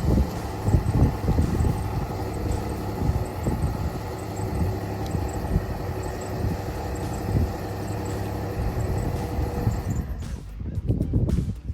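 Dodge Journey's 3.6-litre Pentastar V6 idling steadily just after starting. The engine sound cuts off suddenly about ten seconds in.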